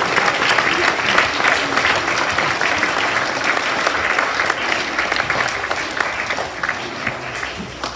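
Audience applauding, many hands clapping at once and slowly dying down toward the end.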